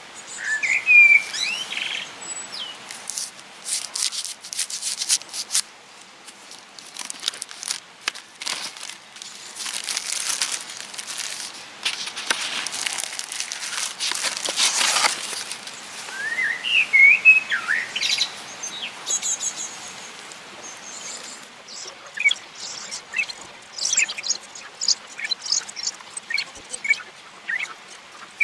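Plastic shrink-wrap and packaging crinkling and tearing as a compressed coir potting-soil brick is unwrapped by hand, with scattered lighter crackles and clicks later. Birds chirp briefly near the start and again about halfway through.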